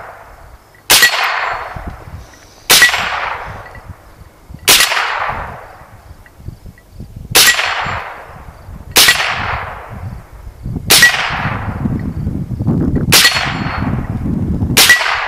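Eight single shots from a Smith & Wesson M&P15-22 .22 LR semi-automatic rifle, fired at a slow, even pace about every two seconds. Each is a sharp crack followed by a short echoing tail.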